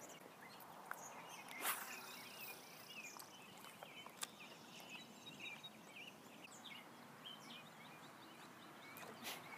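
Quiet outdoor ambience: faint, scattered short bird chirps over a low hiss, with a few light sharp ticks.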